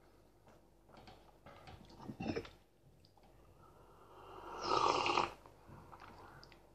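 Faint chewing and mouth sounds, then a loud slurp from a mug of tea about four and a half seconds in.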